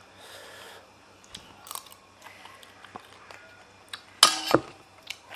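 A person chewing food close to the microphone, with small clicks and a short, sharper, louder noise about four seconds in.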